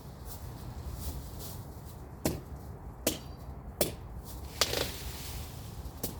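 Machete chopping through brush and woody stems: four sharp strikes about three-quarters of a second apart in the middle, then a fainter one near the end.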